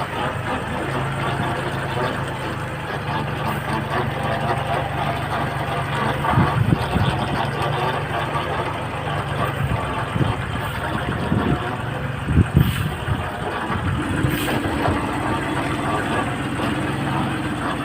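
Farm tractor engine running steadily, with a few knocks and clunks partway through; a higher steady engine tone comes in about three-quarters of the way through.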